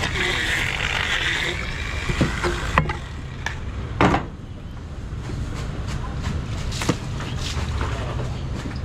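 A knife scraping and cutting through a fish on a wooden chopping board, then a cleaver knocking down onto the board about four seconds in, with a few lighter clicks, over a steady low background rumble.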